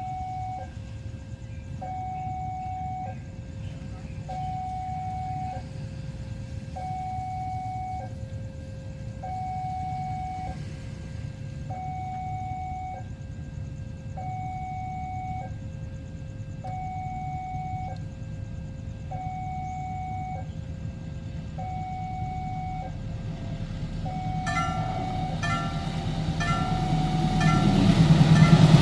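Railway level-crossing warning alarm sounding a two-note electronic signal, a high note and a low note alternating about once a second each, over a steady low rumble. Near the end a quicker ringing pattern joins in and the rumble grows louder as a train approaches.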